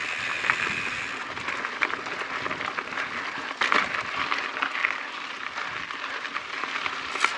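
Mountain bike tyres rolling over a rocky, gravelly dirt trail: a steady crunching hiss with frequent small clicks and rattles from stones and the bike.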